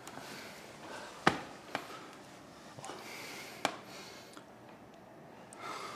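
Quiet room with a few sharp knocks of small objects on a wooden table, the loudest about a second in and two softer ones later, with faint breathing between them.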